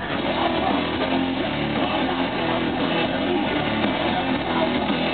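Live rock band playing loud, with strummed electric guitars over bass and drums.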